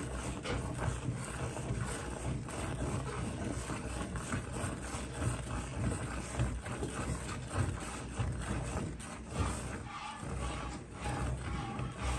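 Cow being milked by hand: streams of milk squirting one after another into a steel bucket of frothy milk, making a rhythmic swishing, over a steady low hum.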